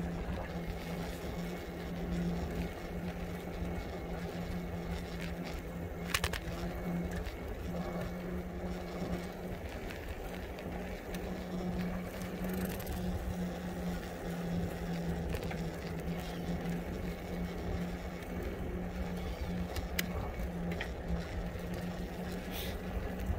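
Riding noise of an e-bike on the move: a low rumble of wind and road with a steady low hum throughout, and a couple of sharp clicks, one about six seconds in and one later on.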